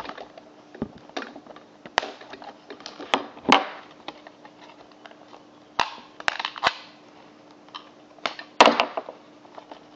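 Rigid plastic blister packaging being handled and cut open with scissors: irregular sharp snaps, clicks and crinkles, the loudest about 3.5 s and 8.7 s in.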